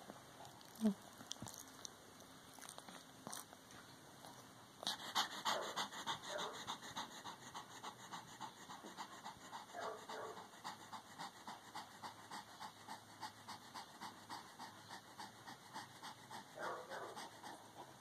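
A small terrier-type dog panting hard, with fast, even breaths of about four a second that start about five seconds in and keep going. There is a brief sharp sound about a second in.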